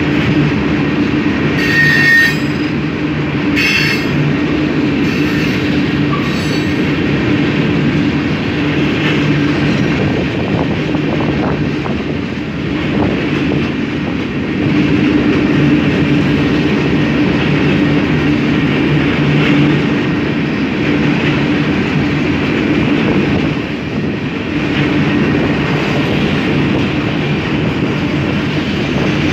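Freight train cars rolling steadily past, a continuous loud rumble of steel wheels on the rails. There are a few short high wheel squeals in the first several seconds.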